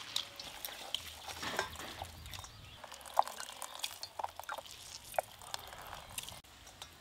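Faint drips and small wet sounds of water being squeezed by hand out of steamed shredded cabbage, falling in scattered drops.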